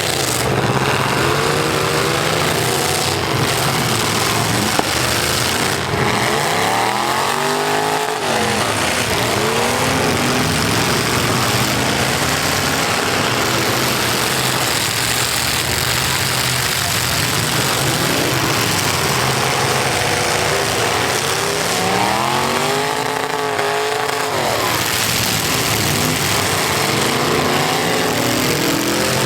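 Several full-size V8 demolition derby cars' engines running and revving together, the pitch sweeping up and down as drivers rev hard, twice most clearly.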